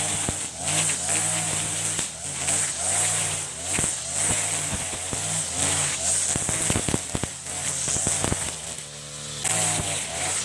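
Echo RM-435 two-stroke brush cutter spinning nylon trimmer line through short grass. The engine revs up and down with sharp ticks as the line strikes debris. Near the end it eases off for about a second, then revs up again.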